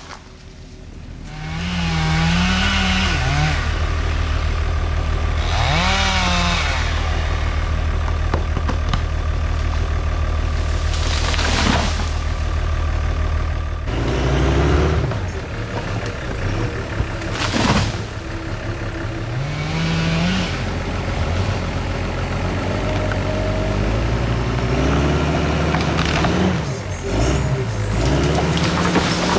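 Logging machinery engine running with a steady low drone and revs that rise and fall repeatedly, broken by a few short sharp cracks.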